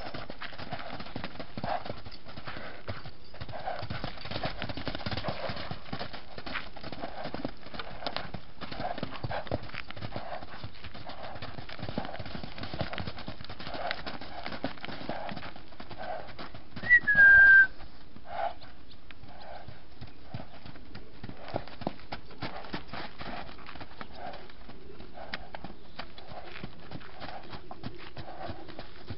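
A horse's hooves beating on arena sand at a canter, the stride repeating about every three-quarters of a second. About seventeen seconds in, a single short whistle, falling slightly in pitch, is the loudest sound.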